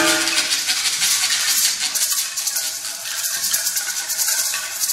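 Music from the opera's score: a dense, high shaken-percussion rattle, while lower notes from the preceding drum strokes fade away in the first second.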